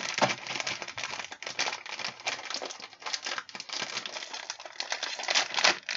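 Plastic snack-chip bag crinkling and crackling continuously as it is handled and opened.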